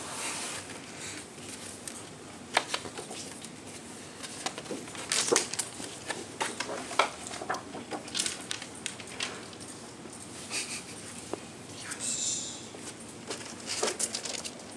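Paper sheets and collage posters being handled, with scattered light taps and rustles and a short burst of rustling near the end.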